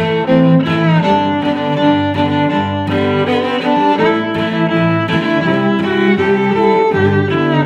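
Background music: bowed strings, violin and cello, playing sustained notes that change about every second.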